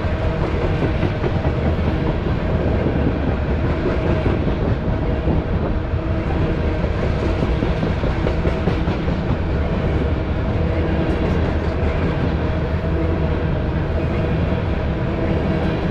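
Coal gondolas of a BNSF freight train rolling past at close range: a steady rumble of wheels on rail, with some clickety-clack.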